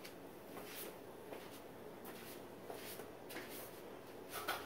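Quiet room tone with soft, scattered shuffling and rustling as a person moves up to a table, with a louder bump near the end.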